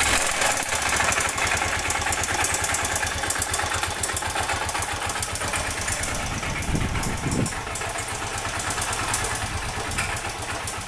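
Honda Bros 125's single-cylinder four-stroke engine idling steadily with a rapid, even knocking, which the owner takes for connecting-rod noise (a worn rod bearing).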